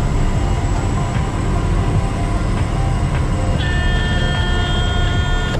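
Ski plane's engine and propeller droning steadily, heard from inside the cabin in flight. Near the end, a few steady high notes of music come in over the drone.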